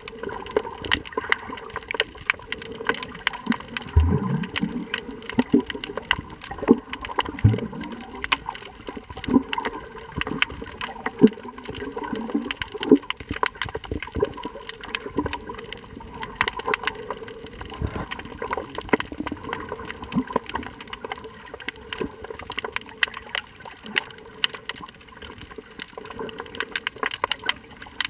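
Underwater sound picked up by a camera in shallow sea water: a steady wash of water noise, peppered with dense short clicks and crackles. Two low whooshes come about four and seven and a half seconds in.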